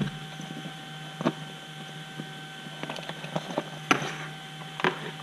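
Handling noise from an EPP foam model wing and a hobby blade on a workbench: a few scattered light knocks and clicks over a steady electrical hum.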